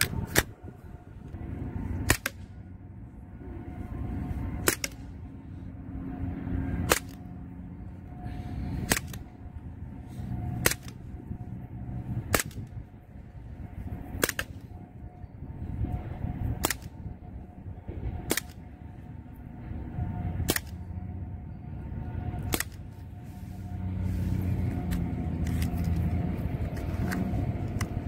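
Gamo PT-85 CO2 air pistol firing 4.5 mm pellets: a sharp crack about every two seconds, twelve shots in all, ending a few seconds before the end. Under them runs a low rumble that grows louder near the end.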